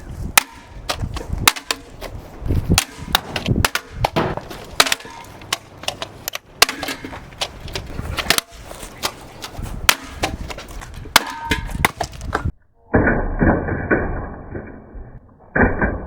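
A ceiling fan being smashed: a rapid series of sharp hits, cracks and breaking sounds, several a second. About twelve and a half seconds in, this gives way to a duller, muffled stretch.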